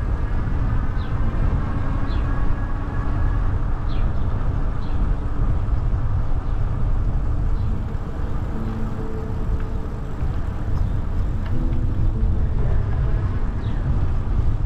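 Wind buffeting the microphone of a camera on a moving bicycle: a steady low rumble, with faint traffic or drivetrain tones underneath.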